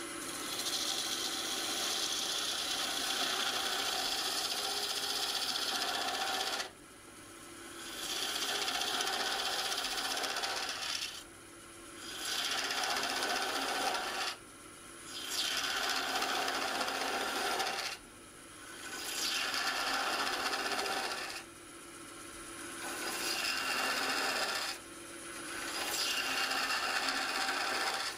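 Gouge cutting a spinning yew blank on a wood lathe, shaping the vase's neck with a steady cutting noise. It comes in repeated passes: one long cut, then several of two to four seconds, each broken by a short pause as the tool comes off the wood.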